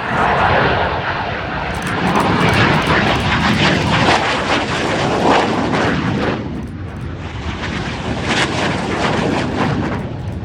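AV-8B Harrier jump jet's Pegasus engine running loud, a rough jet noise that swells and eases, dipping briefly about six seconds in before rising again.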